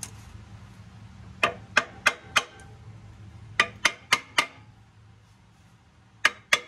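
Hammer tapping metal on metal with sharp ringing strikes, four quick taps, a pause, four more, then two near the end: knocking the new clutch parts home onto the flywheel's dowel pins.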